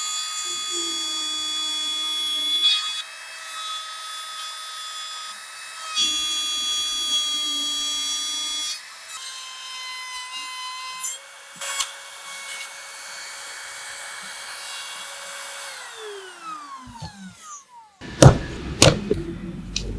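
Electric power tool motor running at a steady high whine, with stretches of rougher cutting sound, then winding down with falling pitch near the end. Several sharp knocks follow.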